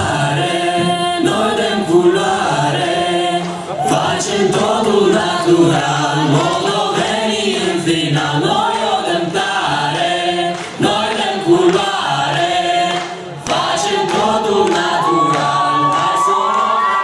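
A mixed group of young men and women singing together in chorus, loud and steady. Near the end a long held note rises over the group.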